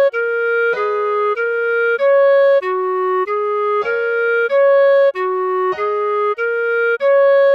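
Clarinet playing a slow melody, one clean held note at a time, each lasting about two-thirds of a second with a short break before the next. It cycles through the same small group of four notes over and over.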